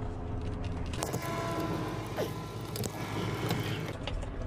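Plastic wiring-harness connector plugs being unclipped and pulled apart by hand: a run of clicks and rattling handling noise starting about a second in.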